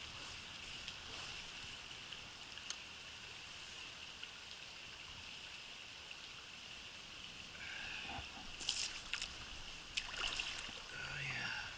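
Spring creek water flowing steadily, an even soft rush of moving water, with a few sharp clicks and knocks in the last few seconds.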